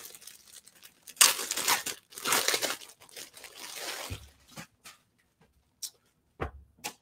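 Clear plastic poly bag crinkling and rustling in two loud bursts as leggings are pulled out of it, then lighter rustles, with two soft low thumps later on.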